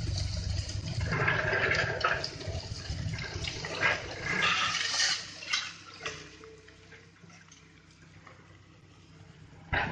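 A single-shank hydraulic vibro ripper on an excavator shaking its tooth into soft rock, with a low rumble underneath. Broken rock and grit pour down the face in rushes. It eases off for a few seconds after the middle, then a loud rush comes again near the end.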